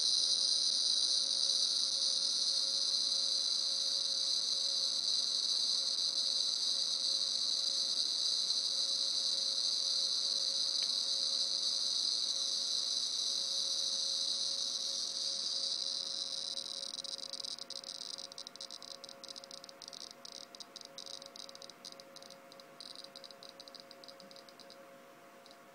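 bGeigie Nano Geiger counter clicking so fast against a highly radioactive autunite (uranium ore) sample that the clicks merge into a steady, high buzz. This is tens of thousands of counts a minute. Over the last several seconds the buzz fades and breaks up into separate clicks as the count rate drops with the sample moved aside.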